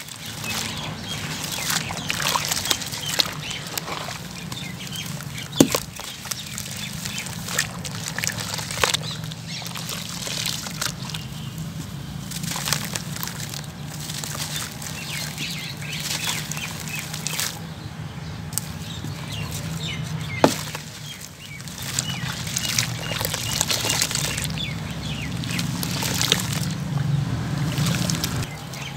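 Hands crushing and crumbling lumps of sand-cement in a tub of water: a continuous gritty crunching and crackling mixed with sloshing and splashing, broken by a few sharper snaps as chunks break. A steady low hum runs underneath.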